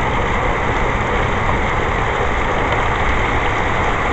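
Heavy rain pouring down in a steady downpour, with wind rumbling on the microphone.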